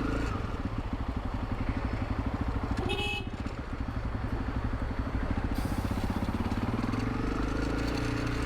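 Honda CRF300 Rally's single-cylinder engine running under way with a steady pulsing beat. The note dips briefly about three seconds in, then rises near the end as the bike accelerates.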